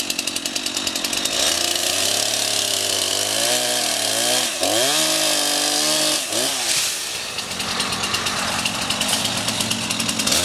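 Gasoline chainsaw cutting through a limb of a dead red oak. The engine pitch dips and recovers several times as the chain bites into the wood, then runs steadier for the last few seconds.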